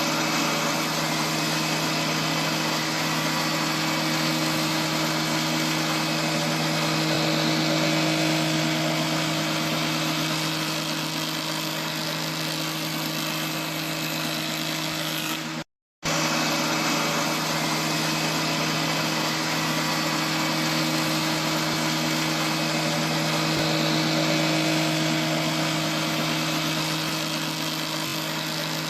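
Multipurpose surface and thickness planer machine running steadily with a constant hum. The sound drops out for an instant just past halfway.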